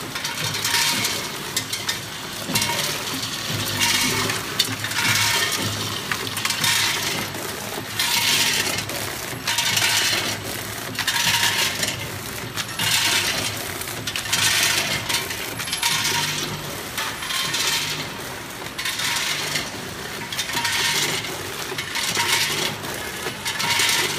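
Vertical form-fill-seal bagging machine running through its packaging cycle: a rattling rush of popcorn dropping through the filler into each bag about every one and a half seconds, over a low steady motor hum.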